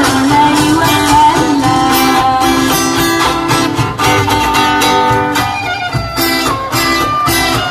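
Live band music: an instrumental passage led by guitar, with rhythmic chords and drum hits.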